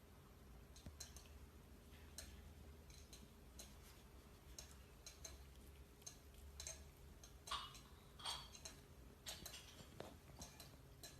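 Near silence: a faint low hum with soft, irregular clicks scattered throughout, a couple a little louder in the second half.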